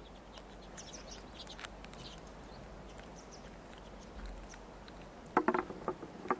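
Faint outdoor mountain air with a few small chirps, then near the end a quick irregular series of sharp knocks: Alpine ibex bucks clashing horns as they spar.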